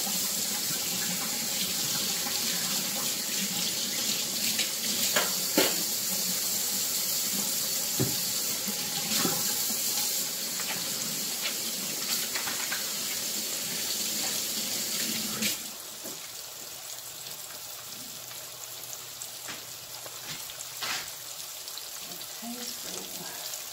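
Kitchen tap running into the sink during hand-washing, shut off about two-thirds of the way through. Under it, a breaded fish fillet sizzles in hot oil in a frying pan, with a few knocks.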